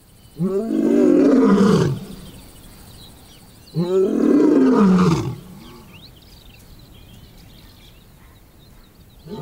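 Male African lion roaring: two long roars about three seconds apart, each rising and then falling in pitch, with a third starting near the end.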